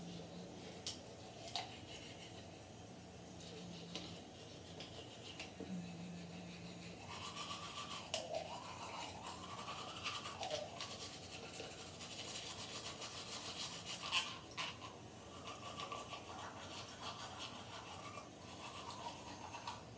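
Manual toothbrush scrubbing teeth: quick, scratchy back-and-forth brushing strokes, with a few sharper clicks.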